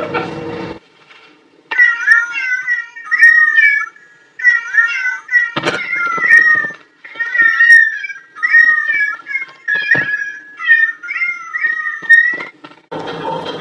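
A cat meowing over and over in short, high, bending calls, with a couple of sharp knocks in between.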